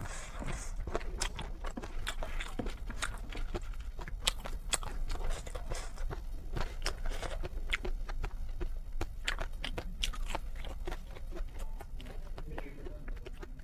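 A person eating noodles close to the microphone: steady chewing with many quick, wet smacking clicks.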